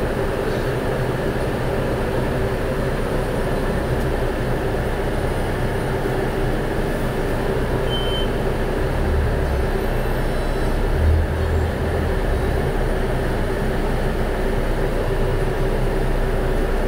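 Electric wood router on a pantorouter joinery machine running steadily at speed, a constant hum over machine noise, as its bit works into a clamped wooden workpiece.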